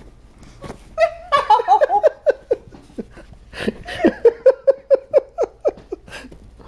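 A woman giggling in two bouts of quick, repeated laughter, the first about a second in and a longer one from about four seconds in.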